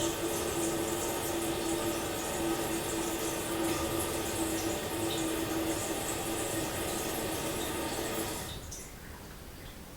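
Toilet cistern refilling after a flush, heard from a distance: a steady rush of water with a low whistling tone from the fill valve. About eight and a half seconds in the flow shuts off, leaving a fainter hiss.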